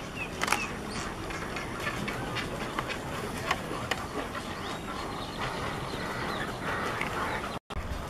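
Roseate spoonbills calling: a scatter of short, low clucks and clicks over the steady chatter of a nesting colony. The sound cuts out for an instant near the end.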